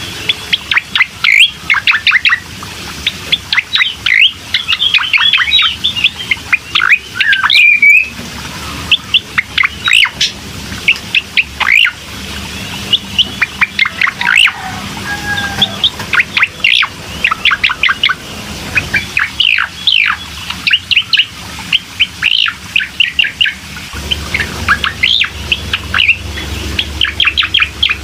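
Recorded song of a cucak koreng: fast runs of short, sharp chirps and quick down-sweeping notes, one phrase after another with hardly a break. It is a lure recording meant to set a caged cucak koreng singing.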